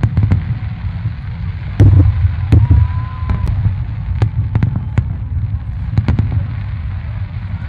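Fireworks display: aerial shells bursting in a rapid run of sharp bangs over a steady low rumble, with a loud cluster of bangs about two seconds in and a brief steady whistle about three seconds in.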